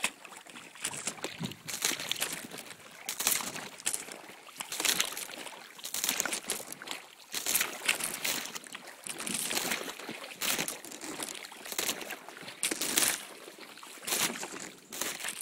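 A small child's boots stomping and splashing in a shallow puddle of icy meltwater: a run of irregular splashes and sloshes.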